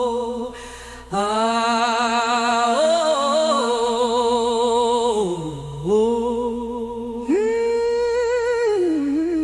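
A singer holding long wordless 'oh' and 'ah' vowels with a wide vibrato in a slow gospel-style chorus, in a few long phrases with brief breaths between them.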